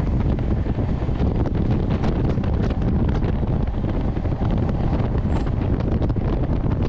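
Wind buffeting the microphone at the open door of a moving passenger train, over the steady rumble of the train running.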